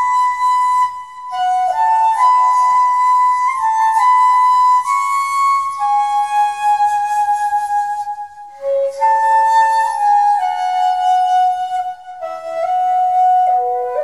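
Background music: a slow flute melody of long held notes stepping up and down in pitch, with brief pauses between phrases.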